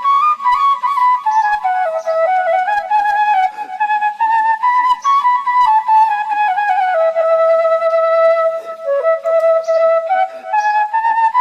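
Background music: a solo flute playing a flowing melody that steps up and down, with one long held note about seven to nine seconds in.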